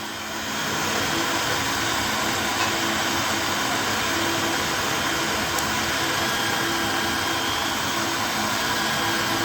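The small 12 V DC motors of a homemade 3-axis CNC milling machine running as it works through its milling cycle. The steady whir swells about half a second in and then holds level.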